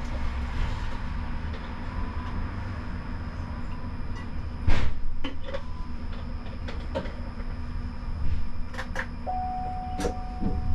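Siemens Combino tram heard from the cab: a low steady rumble with scattered clicks and knocks, the loudest about halfway through. A steady beep starts near the end.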